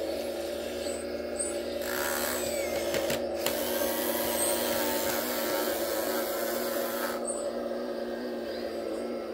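Radio-controlled Kobelco model excavator running with a steady motor and pump whine. It grows louder and harsher from about two to seven seconds in, as the arm and bucket work.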